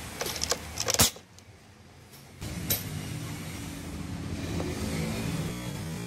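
Handling clicks and clatter with one sharp click, then, from about two and a half seconds in, the steady electric hum of a washing machine's 0A22 drain motor (220–240 V) switched on for a test as it pulls the drain-valve linkage.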